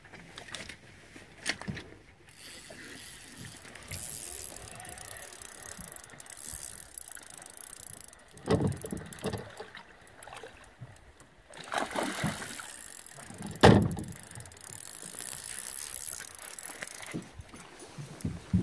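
Fishing reel being worked while a hooked fish is played beside a small boat: mechanical clicking and whirring, with a few sharp knocks, the loudest about two thirds of the way through.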